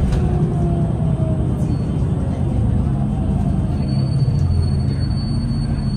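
Interior of a New Flyer DE60LFR diesel-electric hybrid articulated bus in motion: a steady low drivetrain rumble, with a whine falling in pitch over the first second. A thin, high steady tone comes in about four seconds in.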